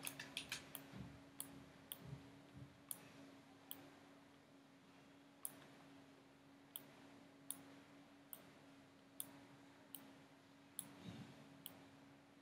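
Faint computer mouse clicks, irregular and often one or two a second, over a low steady electrical hum.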